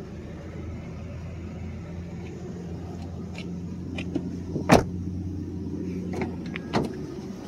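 A car's rear door shut with a single loud knock a little past halfway, then a front door handle pulled with a smaller latch click near the end, over a steady low hum.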